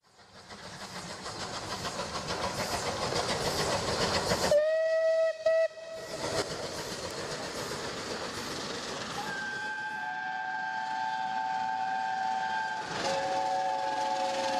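Steam locomotive chuffing, growing louder over the first few seconds, with a short whistle blast about four and a half seconds in. From about nine seconds a long steam whistle of several notes sounds over the running train, dipping briefly near thirteen seconds.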